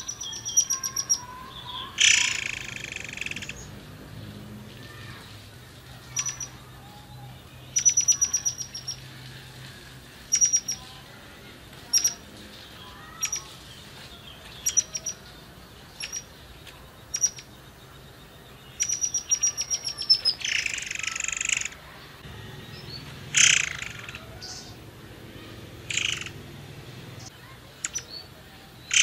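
A caged murai air singing in short, separate phrases: thin high whistles run into quick trains of ticks, with a few loud harsh buzzy notes between them.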